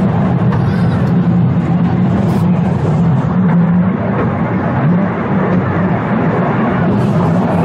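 Car of the Blue Mountains Scenic Railway, a cable-hauled funicular, running down its steep incline on steel rails: a steady, loud rolling noise.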